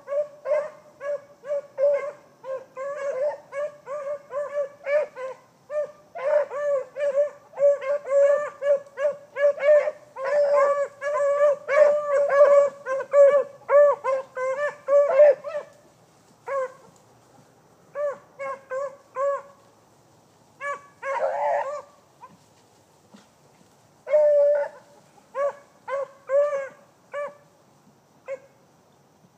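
Beagle baying on a rabbit's scent trail: quick repeated yelping bawls, about three a second, in a steady run through the first half. After that they come in shorter bursts with pauses and stop near the end.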